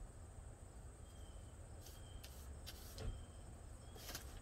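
A few short, soft brushing and tapping sounds from a paintbrush being worked against the paint can and the wooden toolbox, over a low steady rumble.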